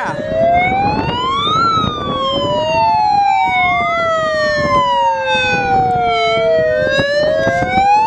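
Megaphone's siren setting wailing loudly, its pitch climbing and falling every two to three seconds, with a second, slower wail sliding down and back up underneath.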